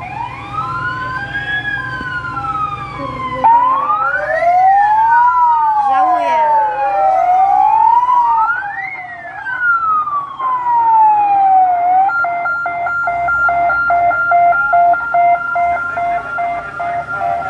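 Sirens of a convoy of fire vehicles passing, several wailing at once so that their slowly rising and falling pitches cross. About twelve seconds in, a fast, evenly pulsing steady tone takes over, with one slow wail still rising beneath it.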